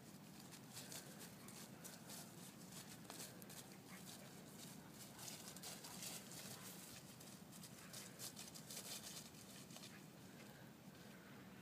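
Faint rustling and pattering of Pyrenean mastiff puppies' paws on grass and dry leaves as they run and scuffle, with many small irregular clicks, busiest midway through.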